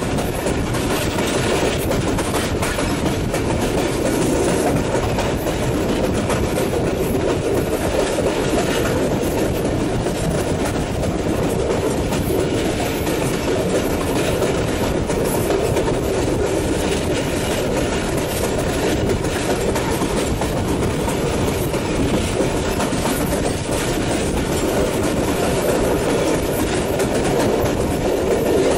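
Jaffar Express passenger train running steadily across a river bridge: the rumble and clatter of the coach's wheels on the rails.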